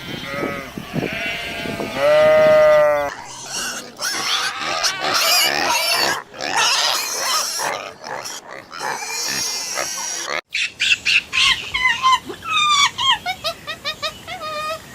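Pigs squealing: a harsh, noisy squealing for several seconds, then a run of short, high squeaks repeated over and over. It is preceded in the first few seconds by a single long pitched bleat.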